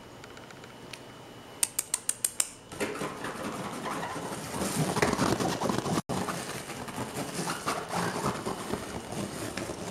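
Kittens clambering over a play tent and its plastic tube frame. A quick run of sharp clicks comes about a second and a half in, then steady rustling and scratching of fabric and claws.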